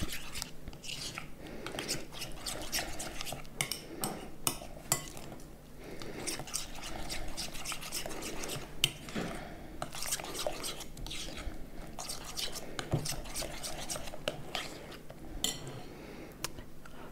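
Stirring a wet egg, cream and cheese mixture in a glass bowl: a utensil scraping and clinking against the glass in quick, irregular taps.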